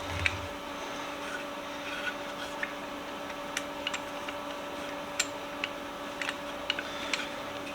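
Scattered light clicks and taps from vise parts and hand tools being handled, over a steady low electrical hum.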